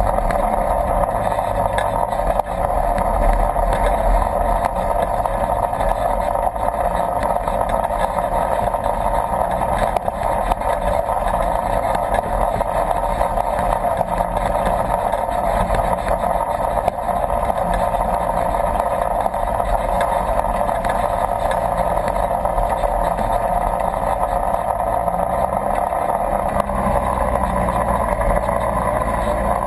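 Polaris RZR 1000 side-by-side's engine running steadily as it drives up a shallow creek, with a constant mid-pitched rush over the engine note. The low note shifts slightly near the end.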